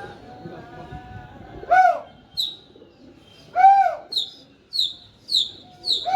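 Birds calling: two loud calls that rise and fall in pitch, about two seconds apart, then a run of short, high chirps repeating about twice a second.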